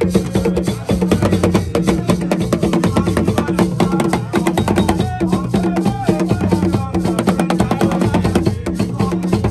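Traditional Ghanaian drum ensemble: several wooden, skin-headed drums struck with sticks and hands in a fast, dense interlocking rhythm, with a man's voice chanting over it.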